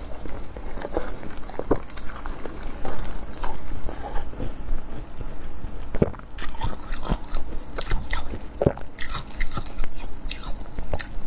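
Close-miked crunching and crackling of frozen cola slush ice being bitten and chewed, with the frozen chunk handled in the fingers; irregular sharp crackles come more densely in the second half.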